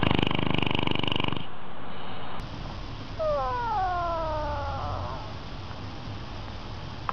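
A short rattling buzz for about the first second and a half, then a cat's long meow that slides down in pitch over about two seconds.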